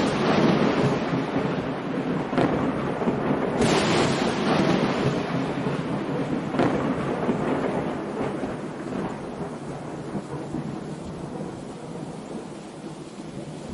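Rushing, rain-like noise with thunder-like crashes: a big one a little under four seconds in and a smaller one a few seconds later. The noise then slowly fades away.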